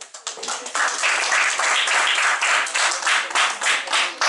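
A small group of people applauding, many hands clapping irregularly, building up within the first second.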